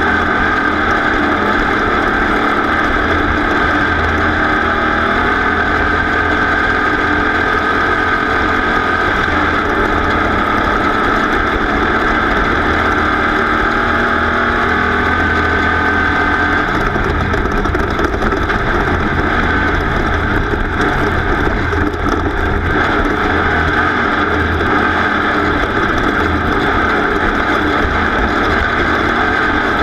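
Off-road race vehicle's engine running hard and steadily, heard from on board.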